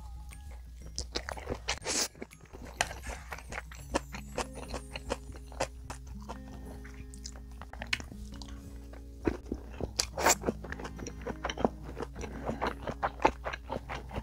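Close-miked chewing of a mouthful of rice mixed with Spam, fried egg, stir-fried anchovies, kimchi and braised beans, with many short sharp wet clicks and crunches. Soft background music plays under it.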